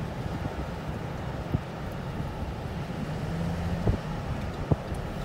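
Low, steady rumble of the Great Lakes freighter Edwin H. Gott's diesel engines as the ship passes close by, with wind buffeting the microphone and a few short thumps.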